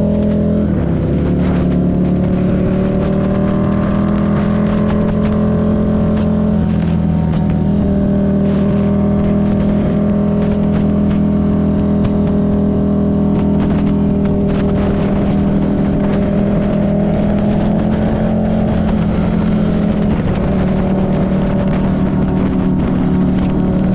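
Buell 1125CR's V-twin engine running at steady cruising revs while riding. Its pitch dips briefly about a second in and then holds fairly level, with small shifts later.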